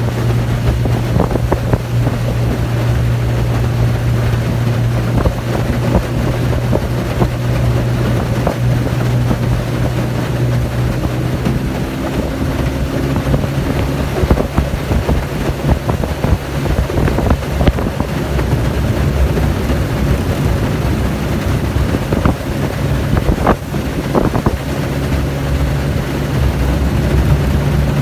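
Yamaha outboard motor running steadily under way on an aluminium boat, its engine note stepping up slightly about halfway through. Wind buffets the microphone throughout.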